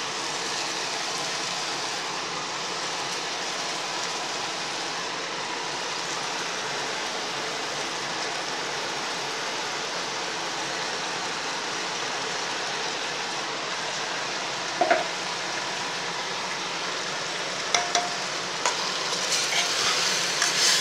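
Hot oil and ghee sizzling steadily in a pressure cooker as soaked basmati rice is added and fried. There are a couple of short metal knocks in the second half, and louder ladle-stirring noise near the end.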